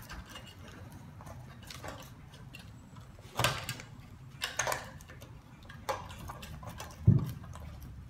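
Small screwdriver scraping and clicking along the groove of a wooden beehive frame, prising out old wax, in irregular strokes with a few louder scrapes. A dull knock near the end.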